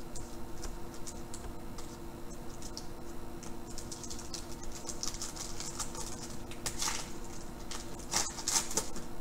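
Foil wrapper of a 2013 Prizm baseball card pack crinkling in the hands, the crackling growing denser about halfway through and loudest near the end as the pack is torn open.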